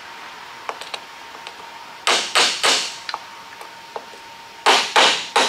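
Light tapping with a hand tool on a car's metal drip rail molding, working it off the roof gutter's lip. A few soft clicks come first, then three taps about two seconds in and about four more near the end; the speaker calls it not even tapping hard.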